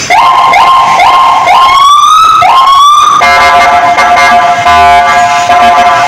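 Landun 110 BP electronic siren sounding through its horn speaker and switching tones: short rising chirps about twice a second, then two slower rising sweeps, then from about three seconds in a steady blaring horn tone.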